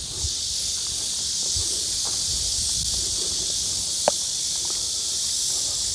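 Steady high-pitched drone of summer insects, with a single light click about four seconds in as a putter taps a golf ball.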